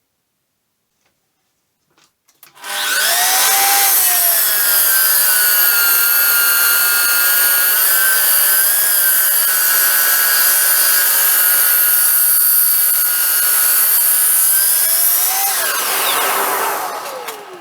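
A woodworking power tool starts about two and a half seconds in, its motor whining up to speed, and runs loud and steady with slight dips in pitch as it works the wood. Near the end it is switched off and winds down with a falling whine.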